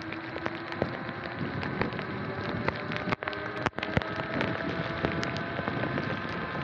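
Rain striking the camera and its microphone in irregular sharp taps, over the steady hiss of tyres on wet pavement and a faint whine from the Sur-Ron's electric motor that edges up in pitch in the second half. The sound drops out briefly twice a little past three seconds in.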